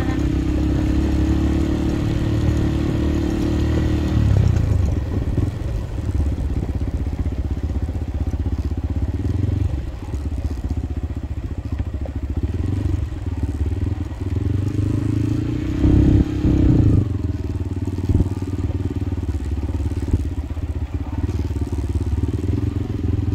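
Motorcycle engine running as the bike travels along a dirt road, over a steady low rumble. The engine tone drops away about four seconds in and comes back louder around sixteen seconds.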